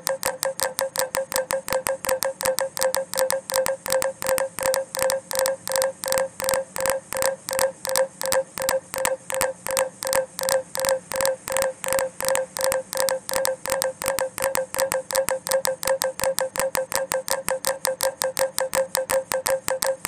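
Minimal electronic score made from a looping Snapchat audio clip layered against itself, shifting in and out of phase. It is an even train of short pulses, about four a second, each a brief tone at one steady pitch with a hissy edge, ticking like a clock.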